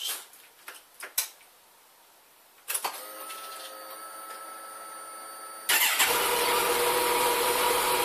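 Kawasaki 1400GTR's inline-four on its stock exhaust being started: a few small clicks, then a quieter steady whine for about three seconds, and then, about six seconds in, the engine fires and settles into a steady idle.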